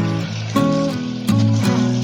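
Background music: plucked guitar notes and chords over a steady bass.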